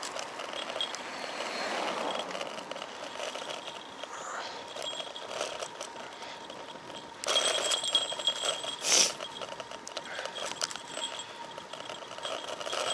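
A road bike ridden over asphalt, rattling and clicking over the road surface, with louder clattering around seven to nine seconds in.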